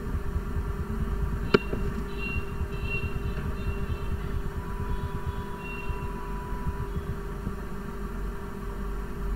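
Steady low background rumble and hum, with a single sharp click about one and a half seconds in.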